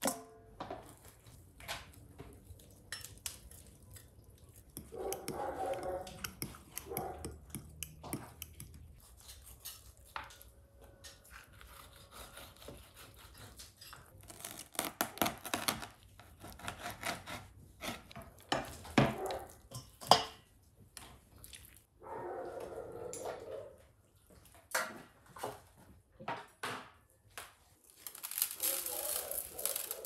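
Kitchen knife cutting raw rabbit meat on a wooden chopping board, with irregular knocks of the blade on the board and meat pieces landing in a stainless-steel bowl.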